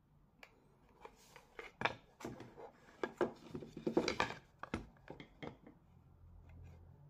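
Handling sounds: a small steel square with a brass stock and an MDF board knocking, tapping and scraping against each other as they are set together and turned over. It is an irregular string of light clicks and knocks, busiest in the middle and stopping about six seconds in.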